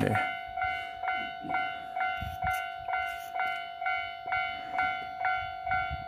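Japanese railway level crossing's electronic warning bell ringing, a clanging tone repeated about twice a second, signalling an approaching train.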